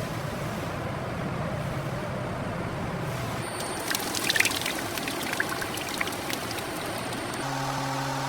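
Running, splashing water with a scatter of sharp clicks through the middle, then a steady machine hum starts near the end.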